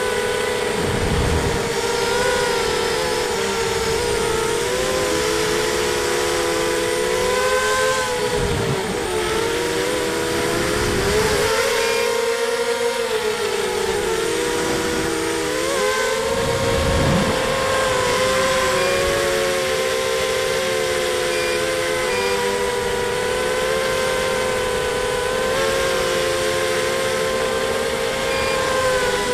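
The four RCTimer 2300 kV brushless motors and 5x4 props of a ZMR 250 FPV racing quadcopter whining in flight, heard from the onboard camera: several close tones waver up and down together as the throttle changes. A few brief low rumbles break in, about a second in, around the middle and later on.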